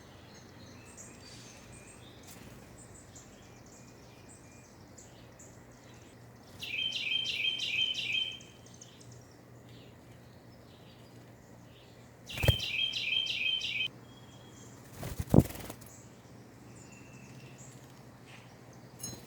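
White-breasted nuthatch singing: two rapid runs of evenly repeated notes, each lasting about a second and a half, the first a third of the way in and the second about two-thirds in. Two sharp knocks, the loudest sounds, come at the start of the second run and about three seconds later.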